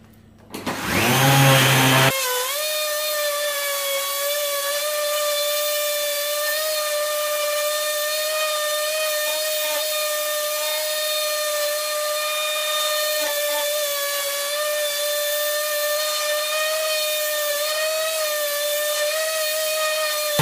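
Parkside PMFS 200 C3 multi-function sander, fitted as a random orbital sander with 240-grit paper and a vacuum hose on its dust port, spins up and then sands old paint off a wooden board. About two seconds in, the sound changes abruptly to a steady, high whine, where the footage is sped up fourfold.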